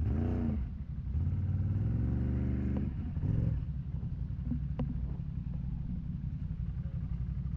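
ATV engine revving hard in three bursts, the longest climbing in pitch, then settling to a lower steady run with a few clacks, while the quad sits bogged down in a deep mud hole.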